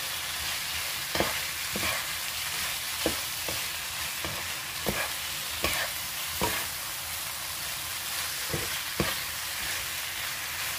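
Squid and vegetables stir-frying in a hot pan: a steady sizzle, with a utensil scraping and knocking against the pan about a dozen times as it is stirred. The pan is dry, with no liquid pooling.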